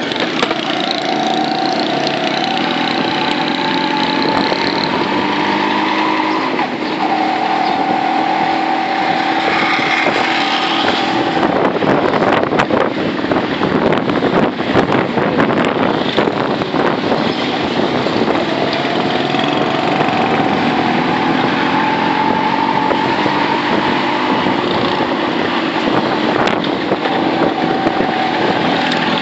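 Small vehicle's engine running while on the move through traffic, its note shifting and climbing with speed, with wind buffeting the microphone for several seconds in the middle.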